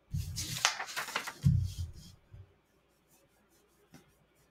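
A man's breathy exhale into a close microphone, then a short low hum, followed by a faint click.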